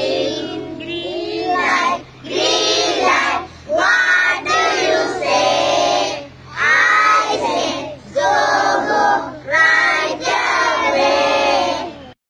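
A group of young children singing together in short, repeated phrases with brief breaks between them, stopping abruptly near the end.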